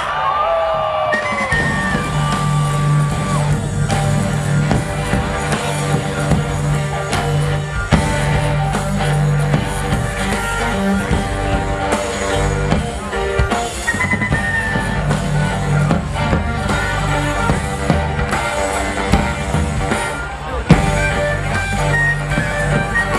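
Music with a sustained bass line and drums.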